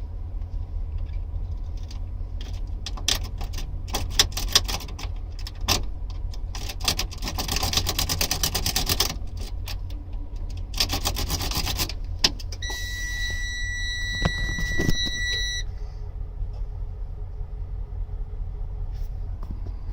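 A lock pick clicking and scraping in a Freightliner truck's ignition lock cylinder, in irregular bursts, over a steady low rumble. Past halfway a steady high electronic tone sounds for about three seconds, typical of the dashboard warning buzzer when the picked ignition is turned on.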